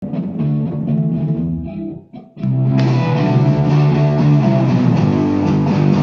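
Live rock band playing an instrumental song opening on electric guitar, bass guitar and drum kit. About two seconds in the music breaks off briefly, then the whole band comes back in fuller and louder.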